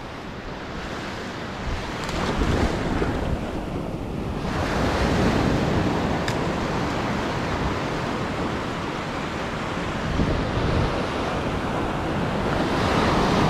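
Surf breaking and washing up a sandy beach at the water's edge, a continuous rush, with wind buffeting the microphone.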